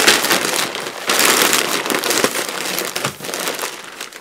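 Newsprint packing paper crinkling and crumpling as it is wrapped tightly around a crystal glass, the rustling easing off near the end.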